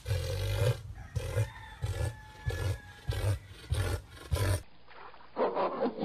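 Southern cassowary calling: a run of deep, low pulses, about two a second, that stops suddenly about three-quarters of the way in. A shorter, rougher animal call follows near the end.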